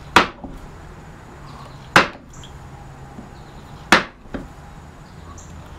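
Mallet striking the handle of a carving gouge three times, about two seconds apart, driving the gouge into the wood to chop in decorative cuts on a carved panel.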